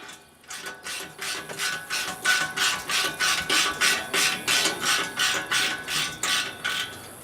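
Ratchet wrench clicking in quick repeated strokes, tightening a lock nut onto a bolt.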